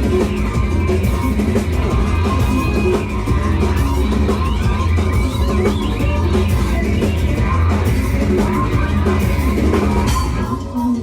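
A live rock band playing loudly, with a dense full-band sound and steady beat-like hits. The sound thins out and drops a little about ten and a half seconds in.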